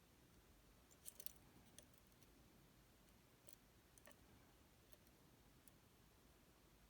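Faint, scattered clicks of lock picks working inside a Lockman Megacross SP lock cylinder: a quick cluster about a second in, then single ticks every second or so.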